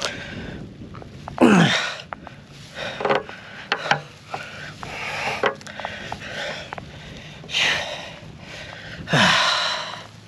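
Rubber exhaust hangers being worked off their metal mounting rods with a screwdriver: a run of short clicks and scrapes of metal on metal, with several short breathy sounds that fall in pitch, loudest about a second and a half in and again near the end.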